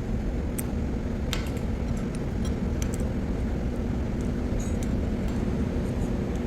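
Steady low machinery hum with a constant droning tone, broken by a few light metallic clinks of small parts or tools.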